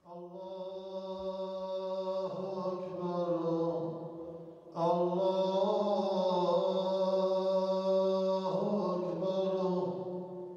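A man's voice chanting an Islamic chant in two long, held, melismatic phrases, the second one louder, with a short break about four and a half seconds in.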